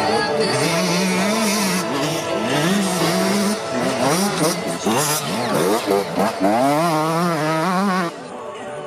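Enduro motorcycle engine revving hard and easing off again and again as the rider accelerates and shifts across the course, then dropping away about eight seconds in.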